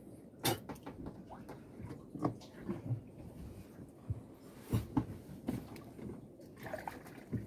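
Irregular knocks, taps and rustles of things being handled on a small boat, a few sharper knocks standing out among softer rustling.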